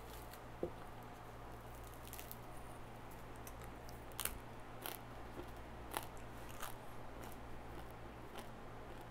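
Faint, scattered crunches of a person biting into and chewing a slice of homemade crusty sourdough bread.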